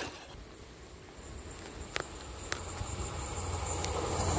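A train approaching the level crossing, its low rumble growing steadily louder, under a steady high-pitched chirr. Two sharp clicks come about halfway through.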